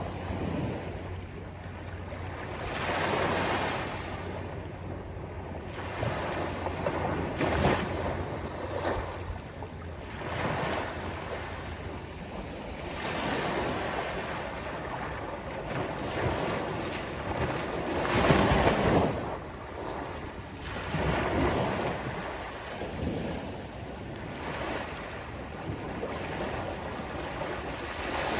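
Sea waves breaking on the shore and washing back, one after another every few seconds, the strongest about two-thirds of the way through.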